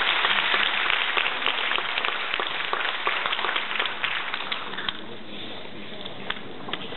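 Audience applauding, dense clapping that thins out about five seconds in to a few scattered claps.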